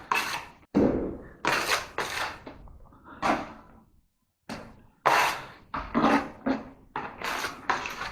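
A quick, irregular series of knocks and thuds from drywall installation work, about a dozen in eight seconds, each with a sharp start and a short ring in a small room.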